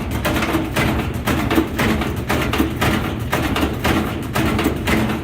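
Whirlpool washing machine spinning with its load out of balance, the tub knocking against the cabinet in a fast, even beat of several knocks a second.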